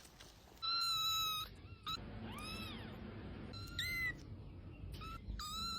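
A cat meowing four times: short, high calls, the second one rising and then falling in pitch.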